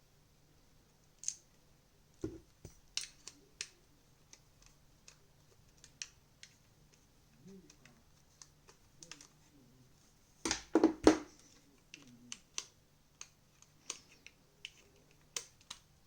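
Irregular small clicks and taps of a TV remote's plastic parts being handled, with a louder cluster of knocks about ten and a half seconds in.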